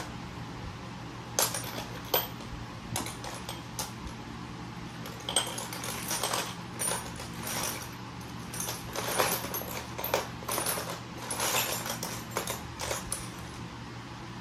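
Metal hand tools clinking and clattering as they are picked up and handled, in irregular sharp clicks. A fan hums steadily underneath.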